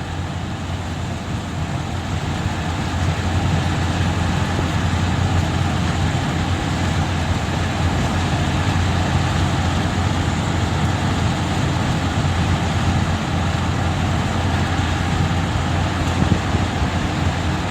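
Steady rumble and hiss of a moving road vehicle, with a strong low hum under an even rush of road and wind noise.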